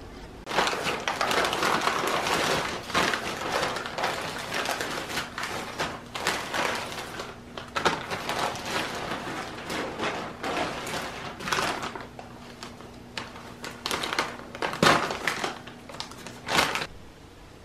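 Kraft paper bags crinkling and rustling as they are handled, in irregular bursts, with a couple of sharper crackles near the end.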